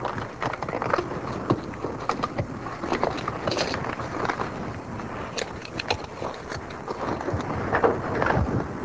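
Scissors snipping the heads off paper book matches: irregular sharp clicks and snips over a steady background hiss.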